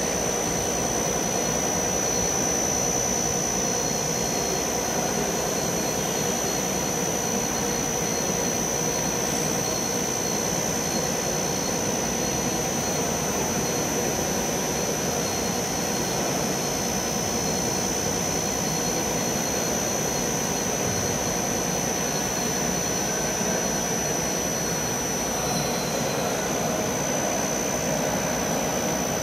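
Right-angle milling head on a gantry-type turning and machining centre running through a milling cut: a steady high-pitched whine over a continuous rushing machine noise, unchanging throughout.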